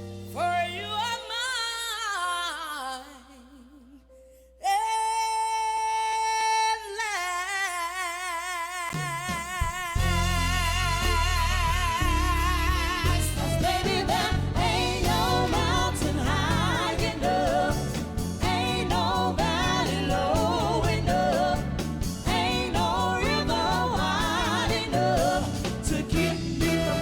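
Soul music: a singer holds long, wavering notes and vocal runs over light backing, then the full band with bass and drums comes in about ten seconds in and the singing carries on over it.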